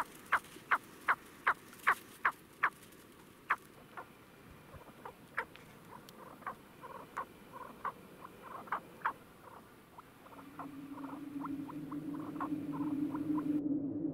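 Snowcock calling: a run of short, sharp clucking notes, about three a second at first, then softer and more irregular. A low steady drone of background music fades in near the end.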